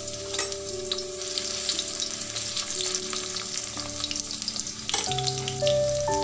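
Chopped onion, bay leaves and cumin seeds sizzling and crackling in hot oil in a metal kadai, stirred with a spoon, with a sharp knock about five seconds in.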